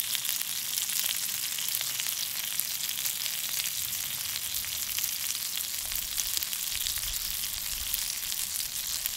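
Sea trout fillets frying in melted Wagyu beef fat in a cast-iron pan: a steady sizzle with fine crackling throughout.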